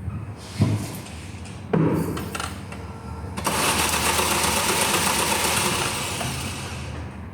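Starter motor cranking the Seat Cordoba's 1.4 16-valve engine over with the spark plugs out, spinning it evenly for about three seconds without firing, to clear oil out of the bores. Two thumps come just before it.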